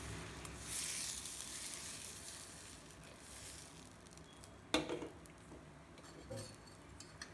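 Appam batter sizzling in a hot appam pan as the pan is swirled to spread it, the hiss strongest about a second in and then fading. About two-thirds of the way through, the pan knocks down onto the gas burner's grate.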